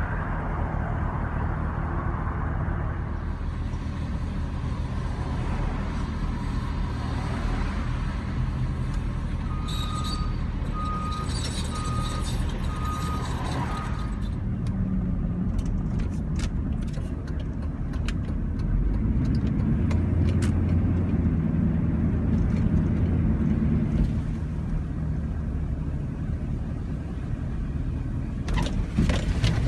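Motor vehicle driving: a steady low engine and road drone that grows louder about two-thirds of the way through. A short run of evenly spaced beeps sounds about ten seconds in.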